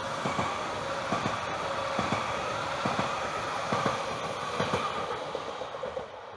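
Electric multiple-unit passenger train passing close by: a steady rolling rumble with a held whine, and wheels clacking over rail joints about once a second. It drops off near the end as the train goes by.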